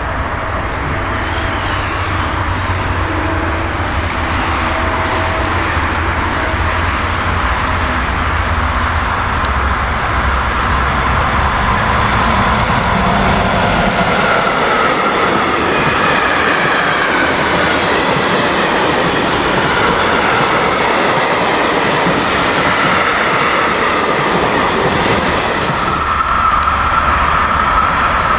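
Freight train of tank wagons passing close behind a DB class 185 electric locomotive: a low rumble as the locomotive comes by, then from about halfway a steady rush and rattle of wagon wheels on the rails with a faint whining wheel squeal.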